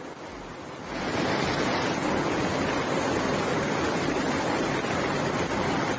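Fast-flowing muddy floodwater rushing past, a steady noise of water that gets louder about a second in.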